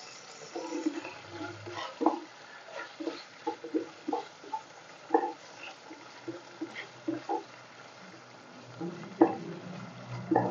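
Wooden spatula scraping and knocking against a stone-coated frying pan while stirring and turning pork strips that sizzle lightly in oil. The knocks are short and irregular, with the loudest about nine seconds in and near the end.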